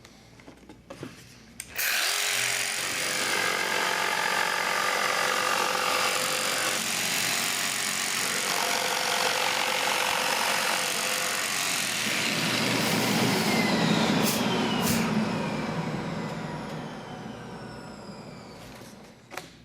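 Festool PS300 jigsaw switched on about two seconds in and cutting steadily through a board, with the blade on its most aggressive orbital setting. Near the end the motor is switched off and winds down with a falling whine, followed by a few clicks.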